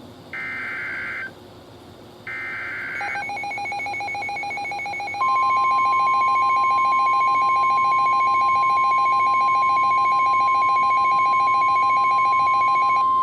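Midland WR-120 weather radio receiving an EAS SAME header: the last two of its three short screeching data bursts. Then, from about five seconds in, the steady 1050 Hz NOAA Weather Radio warning alert tone, signalling a warning such as the severe thunderstorm warning that follows. From about three seconds in, a Gentex Commander 5 alarm horn, set to whoop and triggered by the radio's alert, sounds continuously under the tone.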